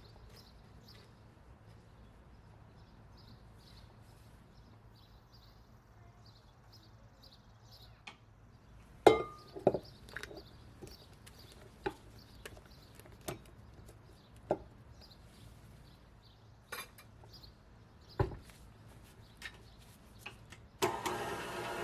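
Kitchenware knocking and clinking, about a dozen separate sharp knocks with pauses between them, the loudest about nine seconds in. Near the end a motor starts up and runs steadily.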